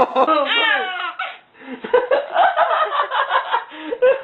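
A baby laughing: a falling squeal in the first second, a brief pause, then a run of quick giggles.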